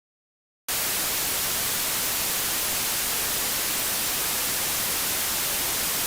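Dead silence, then a little under a second in a steady hiss of television-style static cuts in abruptly, brightest in the high end. It is the sound of a broadcast gone off the air.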